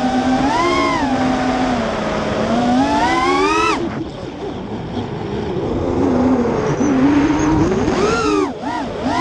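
FPV miniquad's 2407 brushless motors whining in flight, the pitch rising and falling with the throttle. It climbs to a high whine that cuts off abruptly about three and a half seconds in, runs lower for a few seconds, then rises again with a brief sharp dip near the end.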